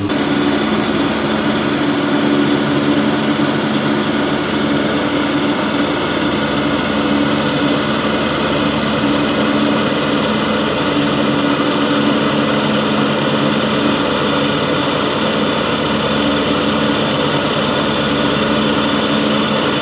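Scag Cheetah zero-turn mower's engine running steadily.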